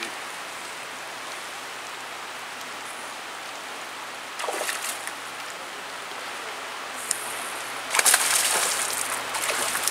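Steady rush of a flowing creek, and about eight seconds in a loud splash lasting over a second as a hooked brown trout thrashes at the surface.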